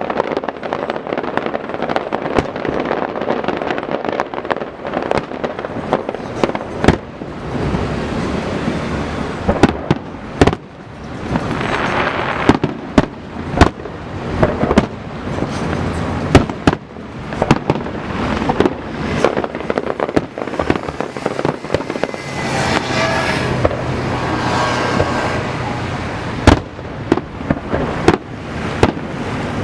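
Aerial fireworks display: a rapid, irregular run of booming shell bursts and sharp cracks, thickening into dense crackling about a third of the way in and again in the later part.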